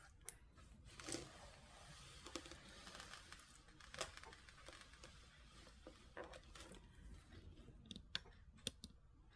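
Near silence with faint scattered crinkles and clicks: the plastic-covered diamond painting canvas being handled.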